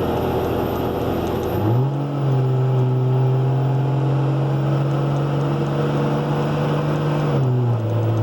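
Turbo-diesel pickup truck driving at interstate speed: a steady engine drone over road noise, its pitch stepping up about two seconds in and dropping back near the end.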